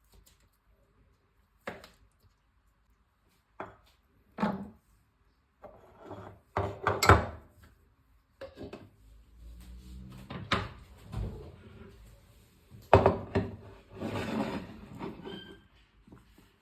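Wooden knocks and clacks with rubbing and scraping, as of things set down and slid on a wooden surface. A few knocks come spaced apart at first, then busier stretches follow, with the loudest knocks a little before halfway and again about three-quarters through.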